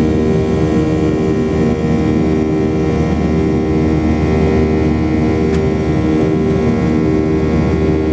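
Cabin noise of a Boeing 737-800 in the climb after takeoff: its CFM56-7B turbofan engines make a steady drone with a low rumble and several held tones.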